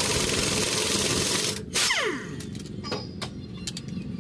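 Pneumatic impact wrench on a pickup's wheel nuts, rattling continuously, then stopping about one and a half seconds in with a falling whine as it spins down. A few light metallic clicks follow.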